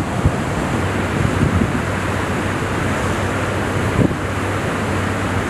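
Wind buffeting the microphone on the open deck of a ship underway, a steady rushing noise over a low, even hum. There is a brief knock about four seconds in.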